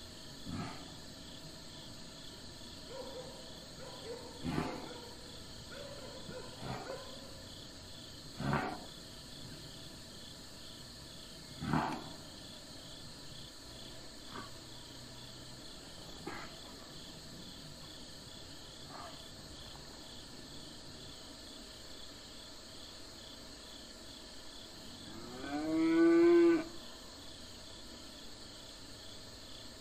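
Cattle mooing: several short, low calls during the first twelve seconds, then one loud moo about a second long near the end that rises in pitch and then holds.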